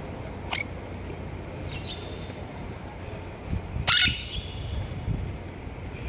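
Blue monk parakeet (quaker parrot) giving a few soft short chirps, then one loud, sharp squawk about four seconds in.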